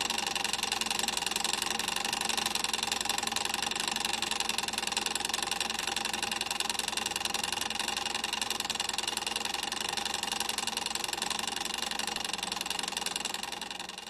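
A machine running with a steady, rapid rattle, fading away near the end.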